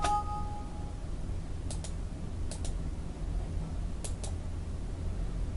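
A short two-tone Windows alert chime with a click at the start, then three pairs of sharp computer-mouse clicks spread over the next few seconds, over a steady low hum.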